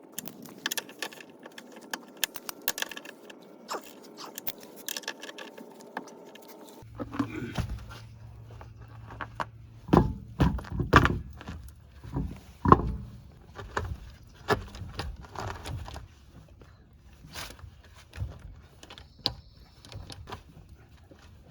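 Hand tools clinking and knocking on metal during a suspension job: a run of separate sharp clanks and knocks, loudest in the middle. A low steady hum comes in abruptly about a third of the way in.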